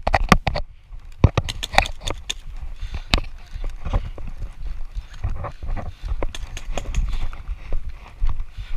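Footsteps on rough ground, with irregular sharp knocks and clicks from carried gear.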